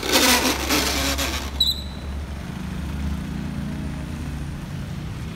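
A Toyota Corolla sedan passing close on a wet road: a loud hiss of tyres on wet asphalt, a brief high squeak about a second and a half in, then the low hum of its engine as it pulls away.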